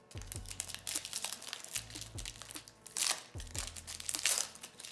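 A foil Pokémon Crown Zenith booster pack wrapper being crinkled and torn open, with louder crackling bursts about three seconds in and again a second later.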